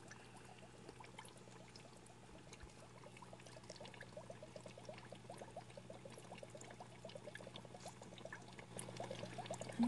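Faint bubbling and trickling of aquarium water: many small bubble chirps a second over a low steady hum, growing a little louder near the end.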